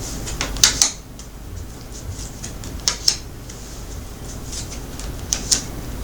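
Tarot cards handled on a table: short clusters of crisp flicks and snaps of card stock, about half a second in, around three seconds and again near five and a half seconds, over a low steady room hum.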